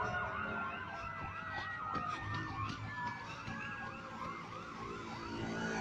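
Emergency-vehicle sirens. One runs a fast yelp of about three rising-and-falling sweeps a second, while another tone slides slowly down in pitch.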